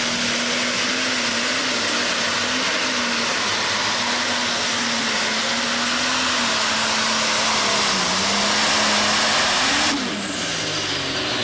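Modified pulling tractor's engine running flat out under load as it drags a weight sled, a loud steady note with a high whine over it. About ten seconds in the whine falls away and the engine note drops.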